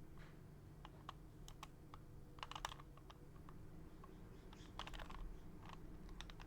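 Original Rubik's Cube turned by hand: faint, scattered plastic clicks of the layers snapping round, with two quick flurries of turns about two and a half and five seconds in.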